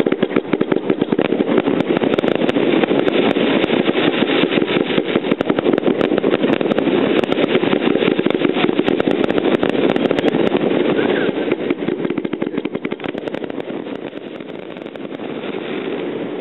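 Niagara-falls firework, a long curtain of cascading sparks, giving a steady dense crackling with many small pops, easing slightly near the end.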